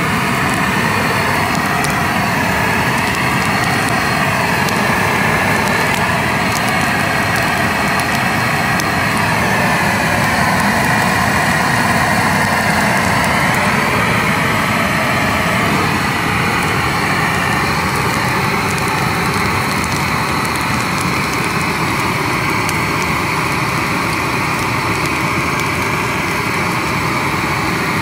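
Propane weed-burner torch burning steadily: a loud, continuous rush of flame as it scorches grass and weeds.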